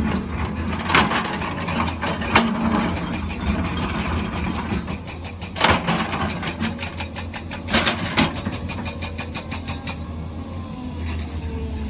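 Excavator engine running steadily, with several sharp knocks and clanks over it.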